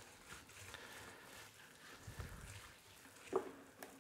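Faint, soft rubbing of a gloved hand spreading oil over raw beef ribs on a plastic cutting board, with a brief squeak about three seconds in.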